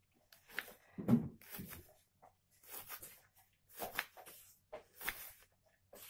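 Kitchen knife slicing an onion on a wooden cutting board: a series of short, crisp cuts, each ending in a knock of the blade on the board, about one a second.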